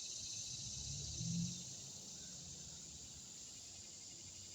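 Steady outdoor insect chorus, a high, even trill of crickets and other insects, with a brief low thump about a second and a half in.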